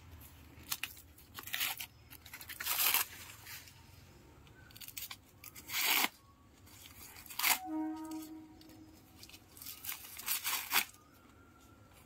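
Green husk leaves being torn and peeled by hand off a freshly picked sweet corn cob, in a series of separate short rips with pauses between.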